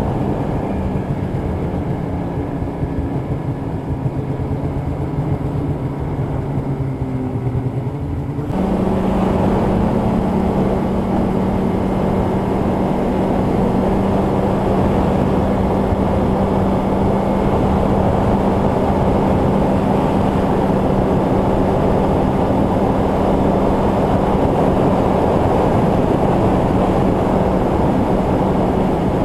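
Polaris snowmobile's two-stroke engine running under way, with a steady droning note over track and trail noise. About eight seconds in it jumps suddenly louder and brighter, then holds an even pitch.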